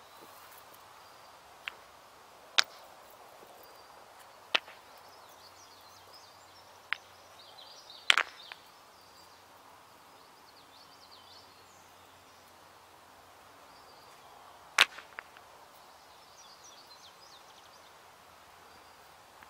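Six sharp, irregular knocks or clicks over quiet outdoor ambience. The loudest is a double knock about eight seconds in, with another strong one near fifteen seconds. Faint bird chirps sound in between.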